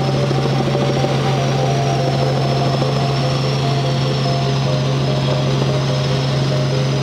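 Cabin noise of a Robinson R44 Raven I helicopter in flight: its Lycoming O-540 six-cylinder engine and rotors make a loud, steady low drone over a constant rushing noise.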